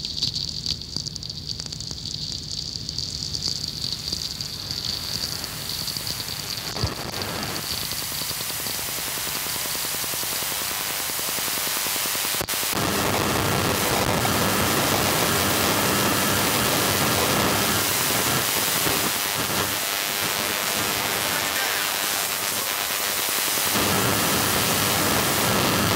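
A radio recording of natural sferics: sharp crackles and clicks over a hiss. About twelve seconds in it switches abruptly to a louder, dense, steady hiss-buzz: pulsed mobile-phone base-station radiation made audible.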